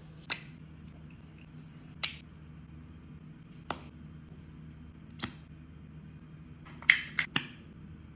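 Scattered sharp clicks and taps of small objects being handled or set down, five single ones spaced a second or two apart and then three in quick succession near the end, over a steady low hum.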